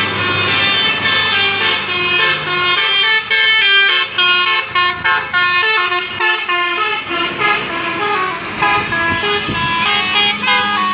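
Basuri telolet horn on a bus playing a fast melody of short notes that step up and down in pitch, with the bus engine running low underneath for the first few seconds.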